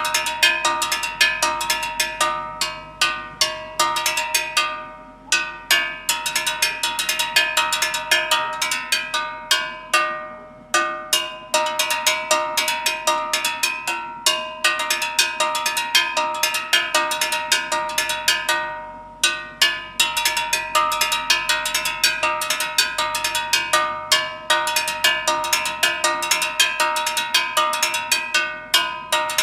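Gas cylinder struck in a fast, repeating rhythm with a metal ring: a gas delivery vendor's signal that he is passing, each vendor having his own rhythm. The strikes come in quick runs with short breaks every few seconds.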